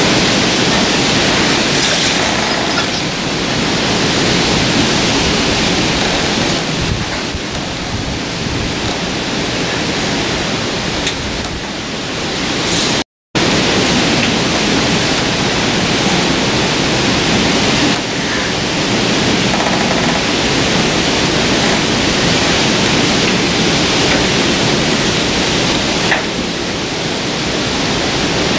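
Steady loud hiss of noise with no clear event in it, cutting out for an instant about halfway through.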